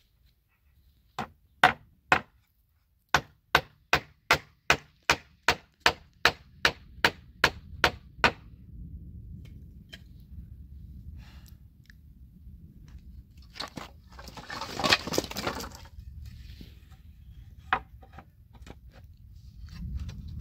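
Hammer striking nails into wooden planks: a few single blows, then a steady run of about a dozen strikes, roughly two and a half a second, that stops about eight seconds in. Later comes a longer scraping rattle, then one more knock.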